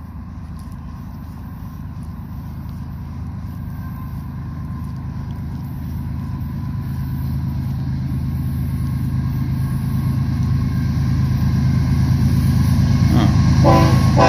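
BNSF diesel freight locomotives approaching with a low rumble that grows steadily louder. About a second before the end the locomotive horn starts sounding in short blasts.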